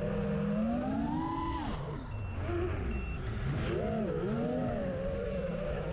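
Holybro Kopis 2 FPV quadcopter's brushless motors whining, heard through its onboard camera. The pitch rises, drops sharply about two seconds in, then swings up and down again with throttle changes as it dives and banks.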